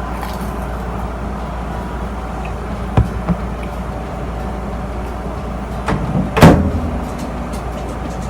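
A steady low hum, with a sharp knock about three seconds in and a louder clatter a little after six seconds.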